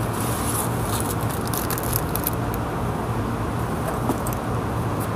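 A steady low mechanical hum of a running motor or engine, with scattered faint crackles during the first couple of seconds.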